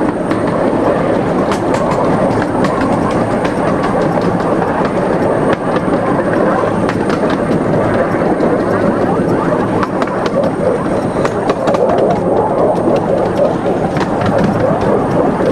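15-inch-gauge Krupp 4-6-2 Pacific steam locomotive running along the line, heard from the driver's seat: a steady rumble of wheels on track with scattered clicks.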